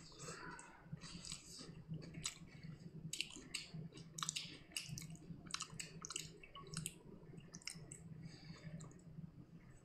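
A person chewing a mouthful of food close to the microphone: irregular wet, clicking chews, over a low steady hum.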